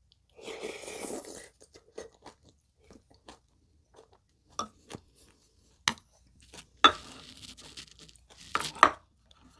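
Close-miked eating sounds: a spoonful of soft tofu and egg yolk taken in and chewed, with wet mouth smacks and clicks. The louder bursts come near the end.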